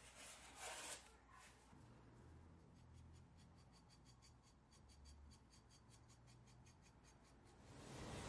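A freshly sharpened forged knife slicing through cardboard, a few crisp cuts in the first second. Then a long run of faint, rapid crisp ticks as the blade shaves hair off the leg: a sharpness test showing a keen edge.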